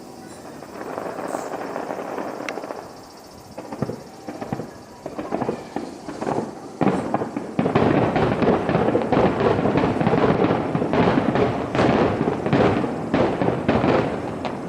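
Fireworks display: a few dull booms at first, then from about four seconds in a barrage of many overlapping bursts and crackles that thickens about eight seconds in and eases near the end.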